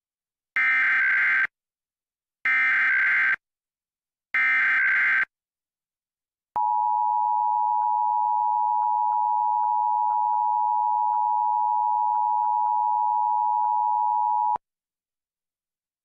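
Emergency Alert System header: three SAME data bursts, each about a second long and about two seconds apart, then the EAS attention signal, a steady tone of about eight seconds that cuts off sharply. It is the opening of a Required Monthly Test alert.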